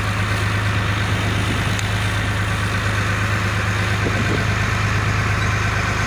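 Fishing boat's engine running with a steady low hum, over a constant hiss.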